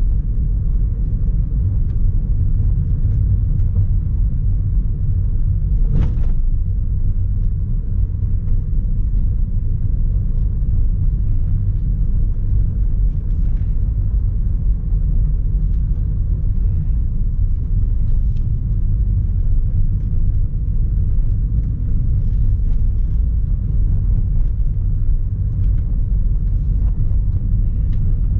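Car driving along a gravel rally stage: a steady low rumble of road and engine noise, with one sharp knock about six seconds in.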